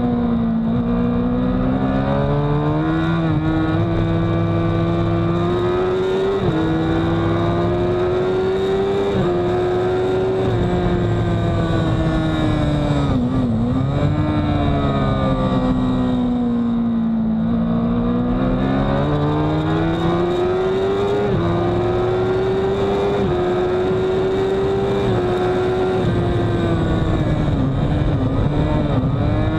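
Honda CBR1000RR sportbike's inline-four engine at racing speed, its revs climbing and falling with the gear changes as it accelerates out of corners and slows for the next. The revs dip deepest about halfway through before pulling up again.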